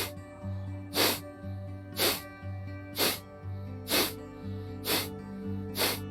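Kapalbhati breathing: sharp, forceful exhalations through the nose, about one a second, seven in all, over background music.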